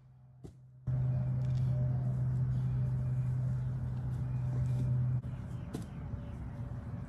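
A steady low hum, like a motor or engine running, with a rushing noise over it. It starts suddenly about a second in, and the hum drops away about five seconds in while the rushing noise goes on more quietly.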